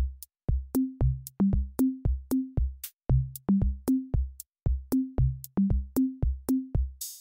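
Background music: a sparse electronic drum-machine beat, kick drum and pitched drum hits stepping up in pitch in a repeating pattern, about three hits a second.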